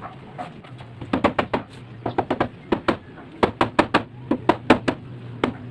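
Rubber mallet knocking wooden chair parts together at the joints: about twenty sharp blows in quick runs of three to five, starting about a second in.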